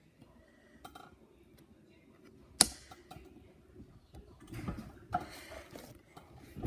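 Hands handling slime and its containers: a few small clicks, one sharp click about two and a half seconds in, then a few seconds of soft squishing and rustling.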